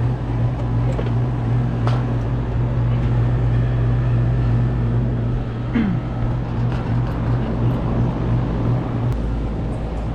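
Rooftop gas package HVAC unit running with a steady low mechanical hum. The hum pulses in its last few seconds and changes about nine seconds in.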